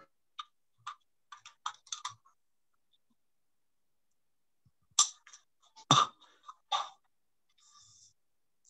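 Computer keyboard keys clicking as a short word is typed in a quick run, then three much louder sharp knocks about five to seven seconds in.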